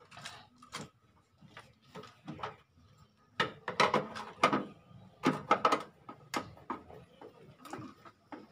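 Irregular clicks, knocks and scrapes of a tool working on the plastic back cover of a 20-inch Samsung CRT TV as the cabinet is being opened, busiest from about three and a half to six and a half seconds in.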